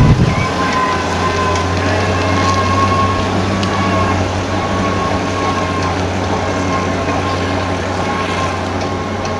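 Classic fire engine's engine running steadily as it drives away, fading slowly, with a brief low knock right at the start.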